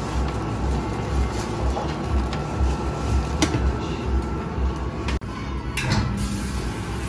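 Steady low rumble, with a sharp click about three and a half seconds in and a short clatter just before six seconds.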